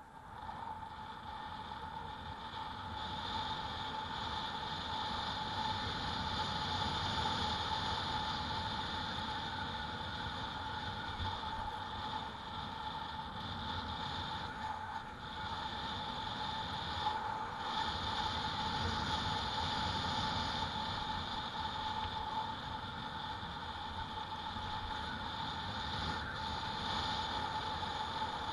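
E-bike in motion: a steady electric hub-motor whine over rolling tyre and wind noise, building over the first few seconds and then holding steady.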